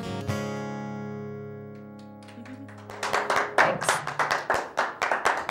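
Final strummed chord on a steel-string acoustic guitar ringing out and slowly fading. About three seconds in, a small group of people starts clapping.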